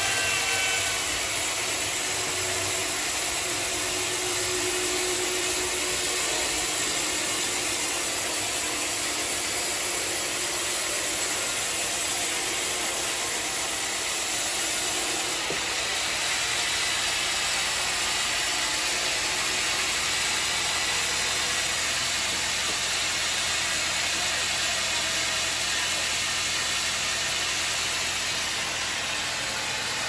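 Large band sawmill running steadily, its blade cutting through a thick teak log with an even, unbroken noise.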